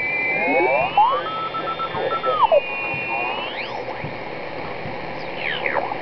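Sproutie homebrew regenerative shortwave receiver being tuned across the 20-metre amateur band: steady band hiss with whistling tones that slide up and down in pitch as the dial sweeps past signals.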